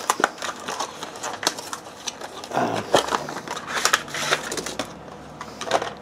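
Cardboard box and plastic packaging being opened and handled: irregular crinkling and crackling.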